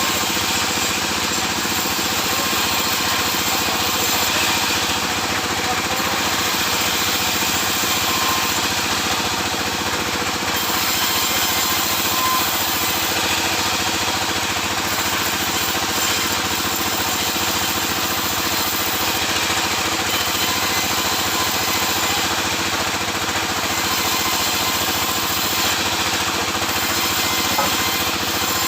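Sawmill saw and its driving engine running steadily, with a continuous mechanical hum and a broad rasping noise.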